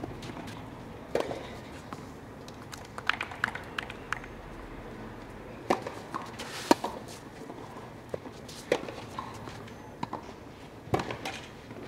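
Live courtside sound of a clay-court tennis rally: scattered sharp knocks of racket strikes on the ball and ball bounces, irregularly spaced about a second or more apart, over faint outdoor background.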